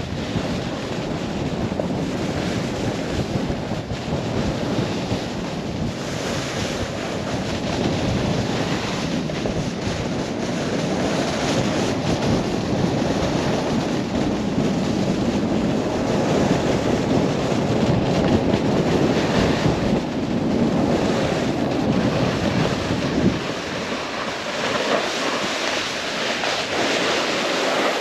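Wind rushing over the microphone of a camera riding fast downhill, with the steady rush and scrape of snowboard edges carving over snow. It eases slightly for the last few seconds.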